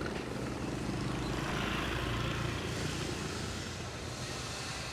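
Steady low engine rumble from motor traffic, with a hiss that swells briefly about a second and a half in.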